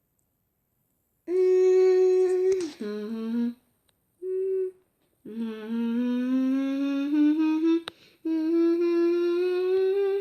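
A voice humming long held notes, starting about a second in: a steady note that drops lower, a short note, then two long notes that each slowly rise in pitch.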